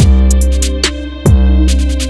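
Background music: an electronic beat with deep bass notes that slide downward and sharp hi-hat ticks.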